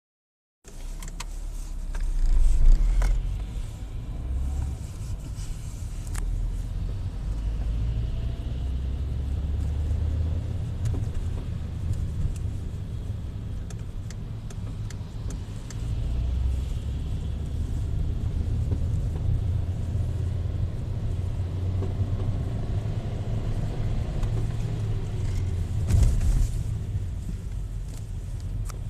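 Škoda Octavia A5 driving, a steady low engine and road rumble with scattered sharp clicks: the periodic gearbox knock that comes only under load and is felt through the gear lever, a fault the owner puts down to the gearbox.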